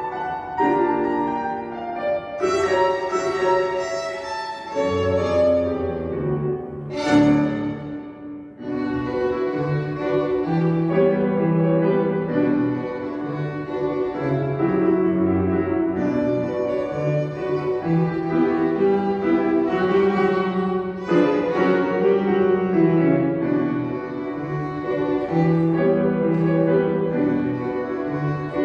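Violin and piano duo playing a ragtime piece, the bowed violin carrying the melody over piano accompaniment. There is a short drop in loudness about eight seconds in.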